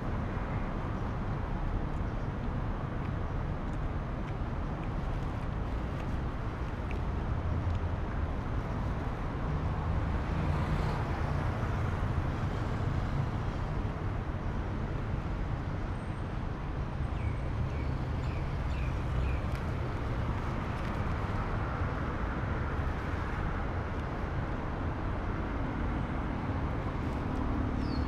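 Steady road traffic noise: a continuous low rumble of cars passing on the road.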